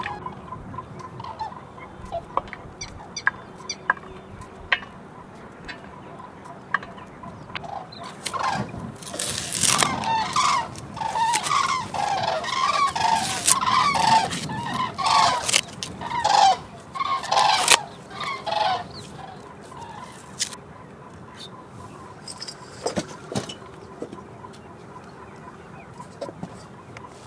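Chickens clucking and squawking, a busy burst of calls in the middle with sharper clicks among them, and only scattered faint calls and light knocks before and after.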